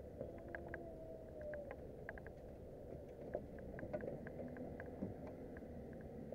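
Low steady wash of wind and water around a small fishing boat, with scattered light ticks and clicks from the rods and reels being handled.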